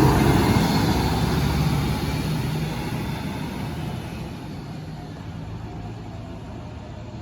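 Large intercity bus passing close by and moving away, its diesel engine and tyre noise loudest at the start and fading steadily away.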